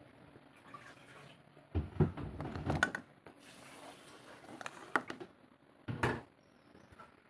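Handling of a plastic bottle of pickle on a kitchen counter: a few knocks and light clatters as it is turned and set down, the loudest about two to three seconds in and again about six seconds in.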